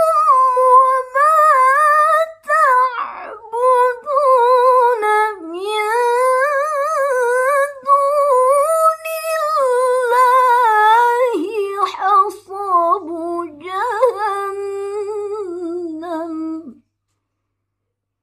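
A young woman's solo voice reciting the Qur'an in melodic tilawah style: long drawn-out phrases with a wavering, ornamented pitch and short pauses for breath. The melody sinks lower near the end and stops abruptly about seventeen seconds in.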